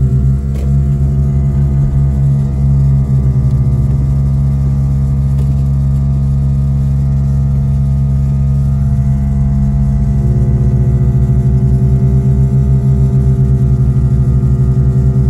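Steady low hum of a vehicle heard from inside the cabin while driving, with a fast even pulse. About ten seconds in a fuller, more evenly pulsing hum sets in, which the driver takes for the vehicle's air compressor running and wants to stop.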